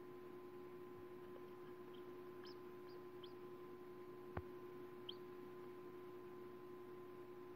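A hatching chick peeping faintly inside a pipped chicken egg: a handful of short, high cheeps over a steady low hum, with a single sharp click a little past the middle.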